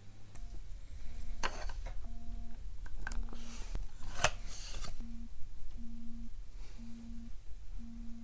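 Smartphone alarm going off: a low electronic beep repeating about once a second. Scraping and rustling handling noises sound over it, the loudest twice within the first half.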